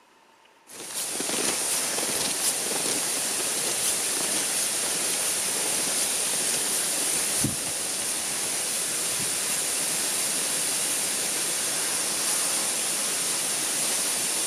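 A steady, even rushing hiss that starts suddenly about a second in and carries on unbroken, with a brief low thump about halfway through.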